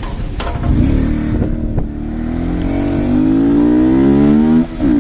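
Sport motorcycle with a loud exhaust accelerating: the engine's pitch climbs steadily for a few seconds, drops sharply for a gear change near the end, then picks up again.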